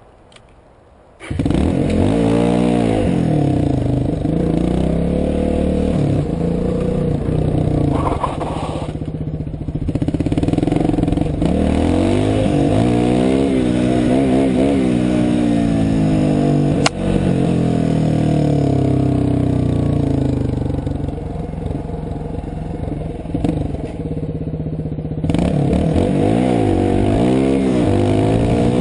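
Dirt bike engine heard from on the bike, revving up and down as it is ridden, its pitch rising and falling again and again through throttle changes. The engine sound cuts in abruptly about a second in, and there is a single sharp click partway through.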